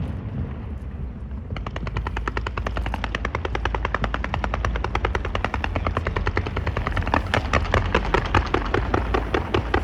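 Fireworks crackling: about one and a half seconds in, a rapid, dense string of small sharp bangs starts, like a firecracker string, roughly ten a second, over a steady low rumble.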